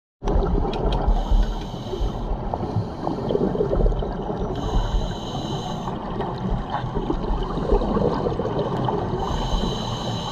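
Scuba diver's regulator breathing, heard underwater: three hissing inhales, each followed by exhaled bubbles gurgling and crackling over a low rumble.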